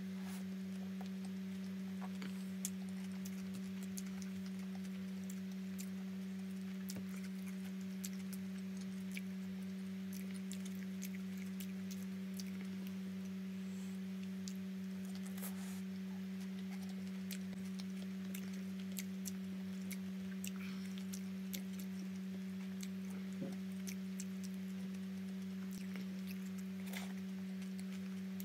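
Someone eating a roti John sandwich: small wet chewing and mouth-smacking clicks scattered throughout, over a steady low hum.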